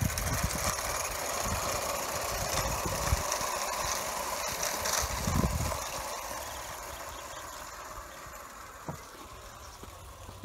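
Vintage Bassett-Lowke Enterprise 4-4-0 live steam model locomotive running with four coaches, a steady mechanical running and rattling sound. It fades over the second half as the train draws away.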